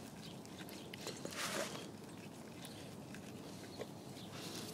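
Faint rustling and a few soft ticks as a flathead screwdriver works loose the bottom drain screw on an outboard's lower unit gearcase, to let out the gear oil.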